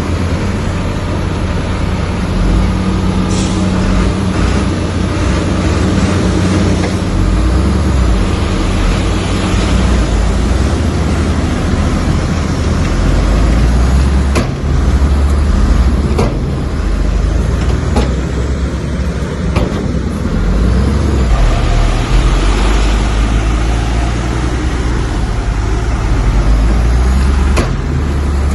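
Heavy diesel earthmoving machinery running steadily under load with a deep rumble, and a few sharp knocks spread through it.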